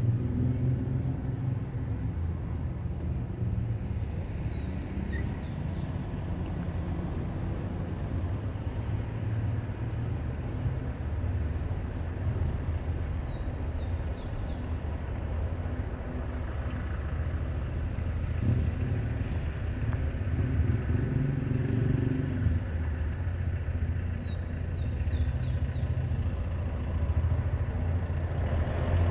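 City street ambience: a steady low rumble of car traffic passing, swelling a little now and then, with a few faint high chirps.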